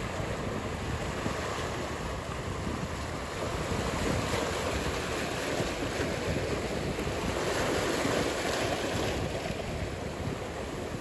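Ocean surf rushing and washing, a steady noisy roar of breaking waves that swells a little between about four and nine seconds in.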